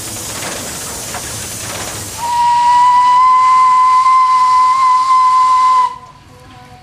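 Steam locomotive hissing steam, then about two seconds in its whistle sounds one steady high note for about three and a half seconds and cuts off sharply.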